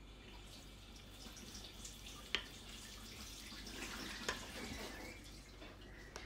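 Spoon stirring noodles in a bowl of ramen broth: soft liquid sloshing, with a sharp clink of the spoon against the bowl about two seconds in and a lighter one about four seconds in.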